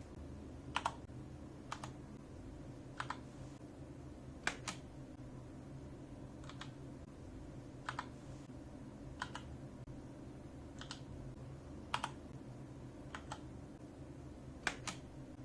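Mechanical keyboard keys pressed one at a time at a slow, even pace, about one sharp click every second or so, a few heard as a quick double click.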